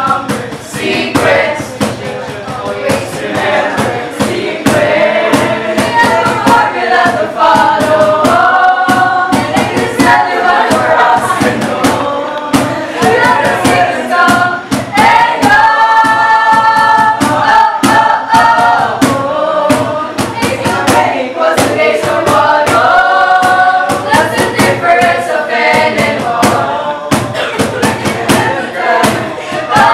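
Many voices singing a jingle together in unison over backing music with a steady beat.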